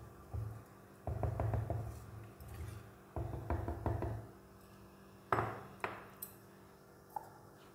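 Wooden spatula stirring a thick yogurt and gram-flour curry in an unglazed clay pot, in low scraping strokes for about four seconds. About five seconds in comes one sharp knock and then two fainter taps as the spatula is set down.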